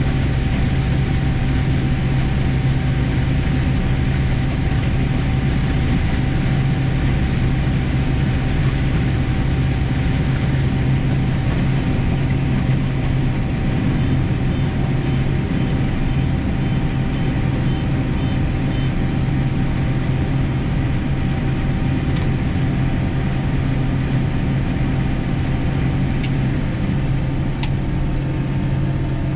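Combine harvester running steadily while harvesting corn: a constant low engine hum with a steady whine above it. A few faint ticks come near the end.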